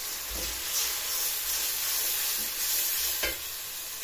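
Chopped onion, garlic and green peppers sizzling steadily in hot oil in a pan, stirred a couple of times.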